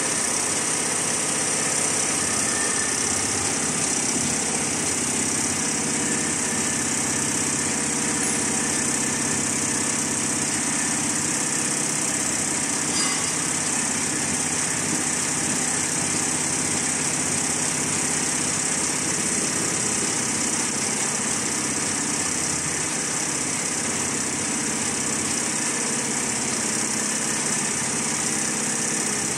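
Richpeace multi-head computerized embroidery machine running steadily, its needle heads stitching at an even pace.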